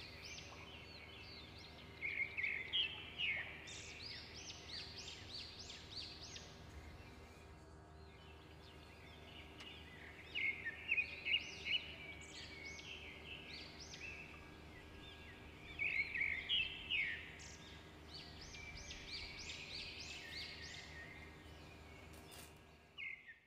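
A songbird singing: runs of quick high chirps and rising whistles throughout, loudest in three bursts of song several seconds apart, over a faint steady low hum.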